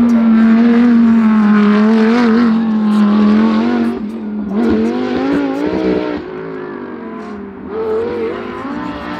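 GT3 race car engines passing on the installation lap. One holds a fairly steady note, then several notes rise in pitch around the middle as cars go by, and another swells past near the end.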